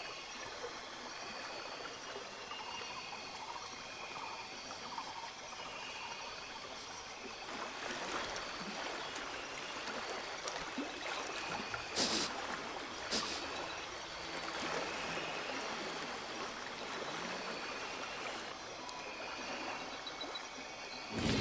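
Flowing, trickling river water, steady throughout, with two short sharp sounds about twelve and thirteen seconds in.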